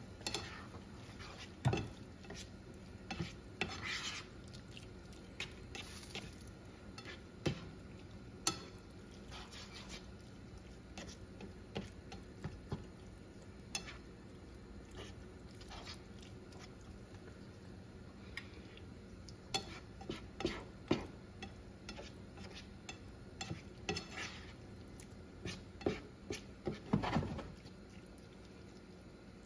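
A slotted spatula stirring and scraping ground beef and diced tomatoes in a skillet, with scattered taps against the pan, over the faint sizzle of the taco meat simmering. The scrapes come thicker in the last few seconds.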